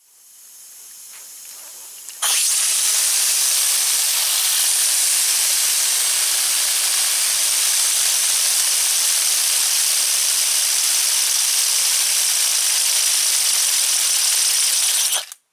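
A 3D-printed two-rotor rotary air engine running on compressed air: a loud, steady hiss of air rushing through it. A faint hiss comes first, the full blast starts abruptly about two seconds in, and it cuts off suddenly near the end.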